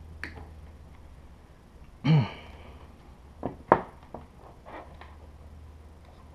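A short, loud grunt falling in pitch about two seconds in, then a few sharp clicks and knocks of printer parts being handled, over a steady low hum.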